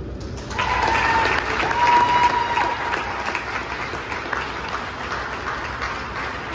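Crowd in the bleachers applauding. It rises sharply about half a second in and slowly tapers off.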